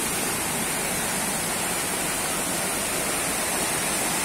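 Fast-flowing muddy floodwater rushing and churning in a torrent, a steady, unbroken water noise.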